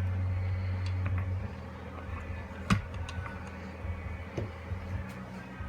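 Scattered metal clicks and knocks as a C-clamp and steel socket are fitted against the jet pump housing, the sharpest click about two and a half seconds in. A low steady hum runs for about the first second and a half.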